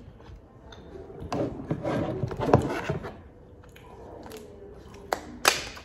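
Crab shell crackling and rustling as king crab legs are handled for a couple of seconds. Near the end come two sharp snips as kitchen scissors cut through the shell of a king crab leg.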